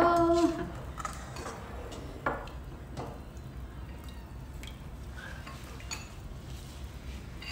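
Metal spoons and a steel ladle clinking lightly against ceramic soup bowls, a few scattered clinks over a low steady hum. A brief hummed voice sounds right at the start.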